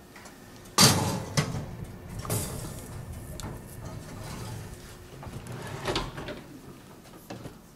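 Metal loaf tin being put into an oven, with a sharp clatter about a second in as it meets the wire rack, then metal scraping and small clicks. There is a single knock near the end.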